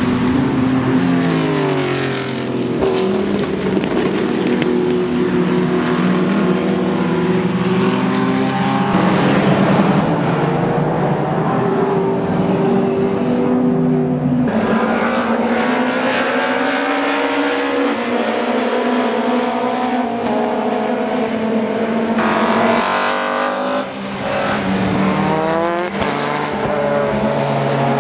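Historic racing touring cars passing one after another at full race pace. Their engines rev up through the gears and drop in pitch on lifts and downshifts, with several engine notes often overlapping.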